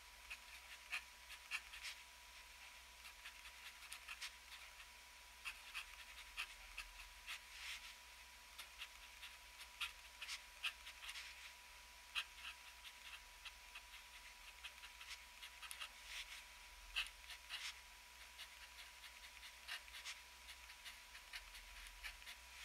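TWSBI ECO fountain pen with an extra-fine nib scratching across paper in handwriting, a quiet run of short, irregular strokes.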